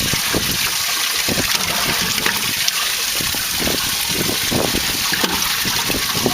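Steady hiss of rushing water, with scattered short low knocks mixed in.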